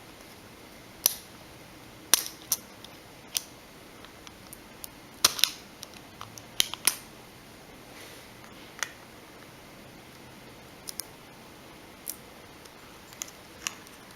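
Irregular sharp clicks and taps, about a dozen, of plastic pry tools working on a Galaxy Nexus phone's internals as its connectors are popped off.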